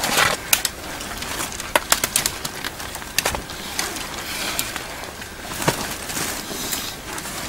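Thin bare twigs and branches cracking and rustling as a person pushes and steps through a leafless thicket, a string of separate sharp snaps.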